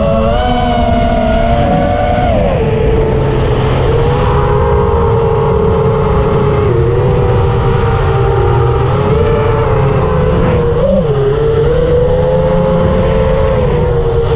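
FPV quadcopter's brushless motors and propellers whining over a low rumble, heard up close from the onboard camera. The whine climbs just after the start, drops about two seconds in, and then holds fairly steady, with short dips as the throttle changes.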